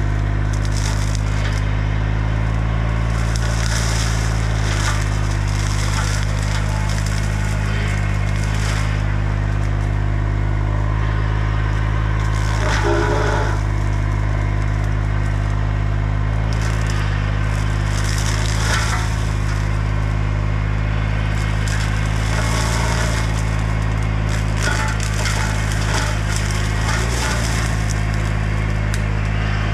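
Bobcat E35 mini excavator's diesel engine running at a steady speed while its Baumalight CXC530 hydraulic mower head chews through brush and wood, with irregular crackling and splintering bursts over the constant drone.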